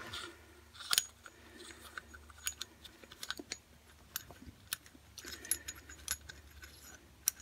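Light metallic clicks and clinks, irregular and faint, as the bolt, washer and steel socket of an improvised bush puller are handled by hand, with a slightly sharper click about a second in.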